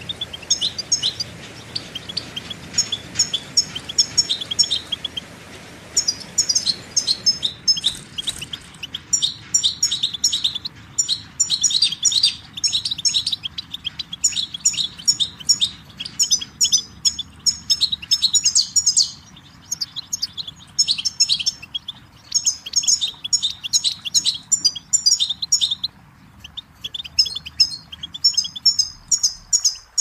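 European goldfinch singing: a long run of fast, tinkling twitters and trills, broken by a few short pauses.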